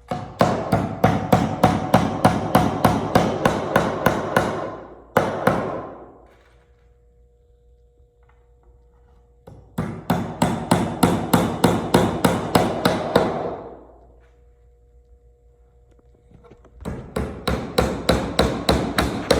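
Hammer tapping small nails into a wooden toolbox kit: quick, even runs of taps, about four or five a second, in three bouts with short pauses between.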